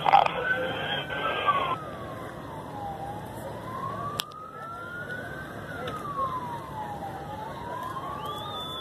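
Emergency vehicle siren in a slow wail, its pitch rising and falling over a few seconds at a time. A loud rush of noise covers the first second or so.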